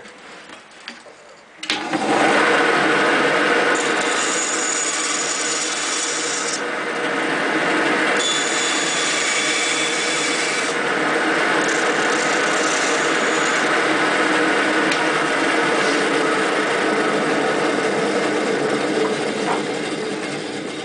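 Band saw starting about two seconds in and running steadily as it cuts a notch into a Paulownia tomentosa fireboard for a bow-drill fire, with two stretches of higher hiss, and fading near the end.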